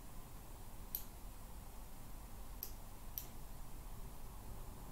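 Three faint computer mouse clicks, one about a second in and two close together near the three-second mark, over a low steady background hum.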